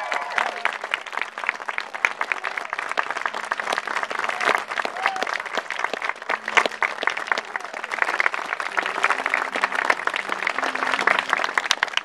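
A crowd of guests clapping in sustained applause, dense and uneven, with a brief whoop about five seconds in.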